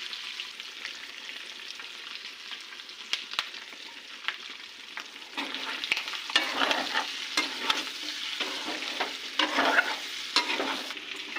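Food sizzling in a hot pan while it is stirred. The sizzle is steady, and from about five seconds in louder, irregular scraping strokes of the stirring utensil join it.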